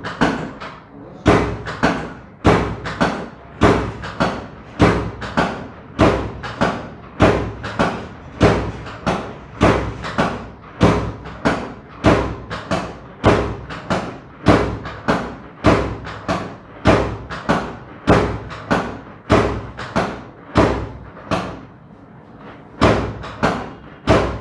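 Steady rhythmic thumps of hands striking a patient's body during chiropractic treatment, about one and a half strikes a second, pausing briefly near the end.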